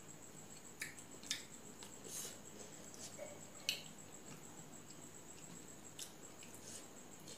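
Fingers mixing and scraping rice on a stainless steel plate, with a few short sharp clicks against the metal and soft chewing, over a steady high-pitched insect trill.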